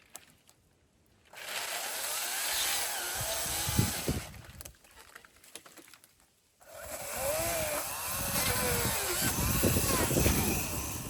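Chainsaw running in two bursts of a few seconds each, its engine pitch rising and dipping as it cuts timber.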